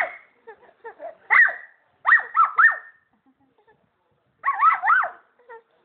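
Baby squealing in short high-pitched cries that rise and fall: single squeals near the start and about a second and a half in, a run of three about two seconds in, and another run of three or four about four and a half seconds in.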